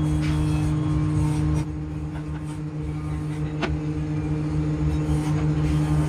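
Steady hum of a running workshop machine motor, with even tones, dropping in level about a second and a half in and slowly building back. A single light knock about midway, as the wooden bowl is set down upside down on the board.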